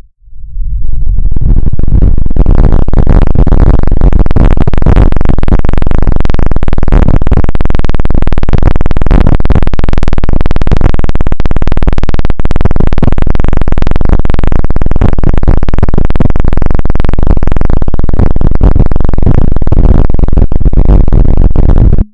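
Very loud, harsh electronically made noise: a dense stream of rapid crackles, heaviest in the bass. It drops out briefly at the start, then runs at full level and cuts off suddenly at the end.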